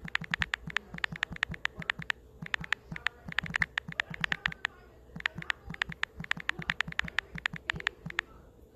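Typing on a smartphone's on-screen keyboard: quick runs of sharp key clicks, several a second, broken by short pauses.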